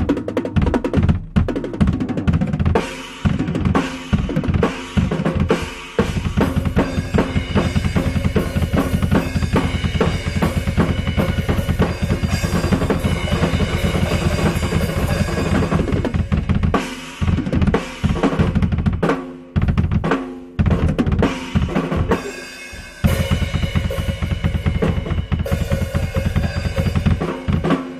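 Drum kit played solo: fast continuous rolls over the bass drum, with snare and cymbals. About two-thirds of the way in, the playing breaks into accented hits with short stops before the rapid strokes return.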